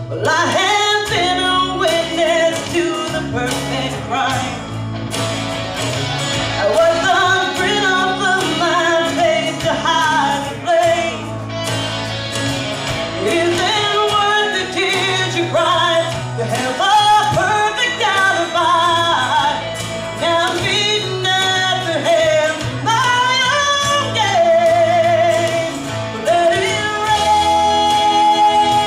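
A woman singing a pop-rock ballad solo over instrumental accompaniment, her voice carrying the melody with vibrato on held notes.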